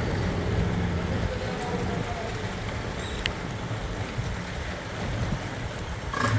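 Boat motor running steadily, a low hum under the rush of water along the hull.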